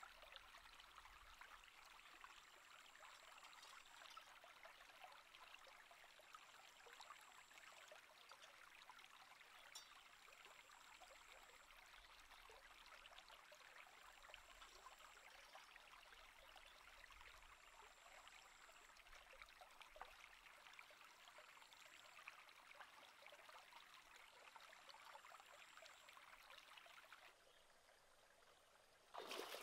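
Shallow rocky stream flowing over stones, a faint, steady rushing. A thin high-pitched tone comes and goes in runs of about three seconds over it.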